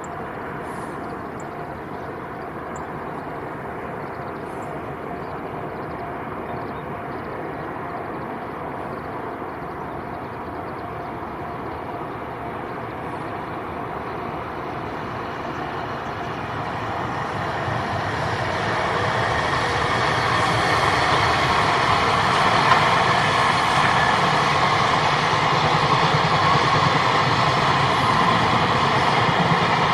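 Freight train behind an EF210 electric locomotive approaching, its noise swelling over the first half and then staying loud as it runs by.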